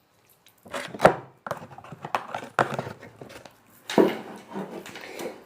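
Slime being stretched and squeezed by hand, making irregular wet clicks, crackles and squelches.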